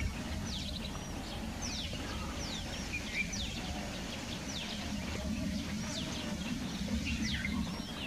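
Birds chirping: many short, quick down-slurred calls, several a second, over a steady low rumble.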